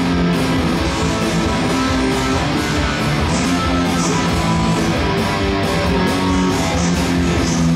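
Electric guitar strumming chords along with a punk rock band track with drums, steady and loud.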